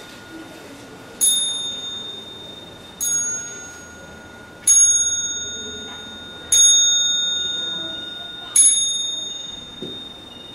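A small, high-pitched bell struck five times, about two seconds apart, each stroke ringing on and fading before the next.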